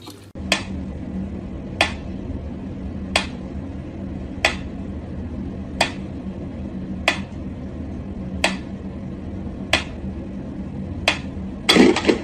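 Pyramid-shaped mechanical metronome ticking slowly and evenly, about one tick every 1.3 seconds, over a steady low hum. A short, louder noise comes near the end.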